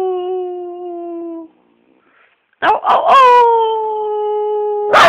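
A dog howling, or 'singing': one long howl sliding slowly down in pitch that stops about a second and a half in, then after a short pause two quick yips run into a second long, steady howl.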